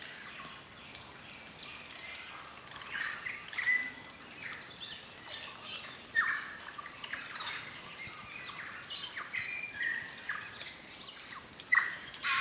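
Chorus of New Zealand native forest birds: many short overlapping calls and whistles, some sweeping sharply down in pitch, with a few louder calls standing out.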